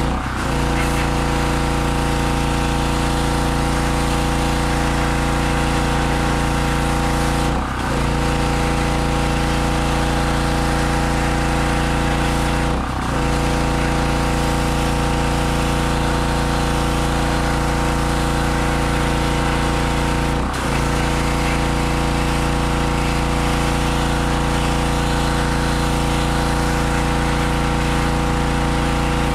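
Harbor Freight 2500 PSI pressure washer's 4 HP 160cc single-cylinder gas engine running steadily under load. Its pitch dips briefly and recovers four times.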